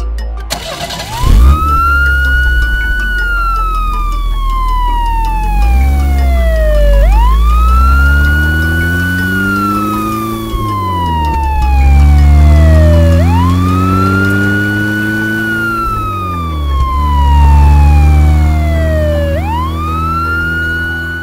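Police car siren wailing: each wail rises quickly, holds briefly, then slides slowly down, about four times, six seconds apart, over a low engine rumble that climbs in pitch with each cycle. A sharp bang about a second in.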